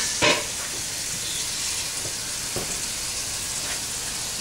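Kitchen faucet running steadily into the sink, a hiss of water that cuts off suddenly near the end, with a brief knock about a quarter second in.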